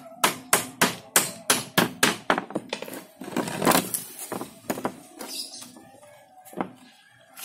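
A hammer tapping nails into a wooden frame, about three quick blows a second for the first two and a half seconds. Then a hand rustles and smooths mesh netting over the frame, with one more knock near the end.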